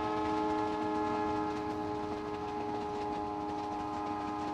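Train horn sounding one long, steady blast of several notes together, fading slightly near the end, over the low running rumble of the moving train.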